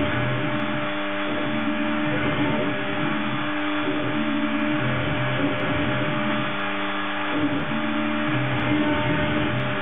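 Desktop CNC milling machine engraving text into wood with a fine cutter: the spindle runs steadily while the axis motors give low tones that shift and switch on and off every second or so as the cutter moves.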